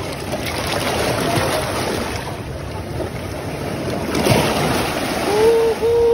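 Seawater surging and washing over shoreline rocks close to the microphone, swelling about four seconds in. Near the end a steady held tone sounds for about a second.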